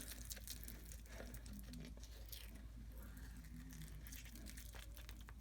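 Faint rustling and crinkling of craft materials being handled, with a few soft scattered clicks.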